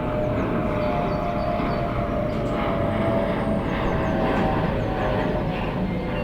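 Airliner passing low overhead on its landing approach: a steady engine roar with a whining tone that swells slightly in the middle. Birds are chirping faintly.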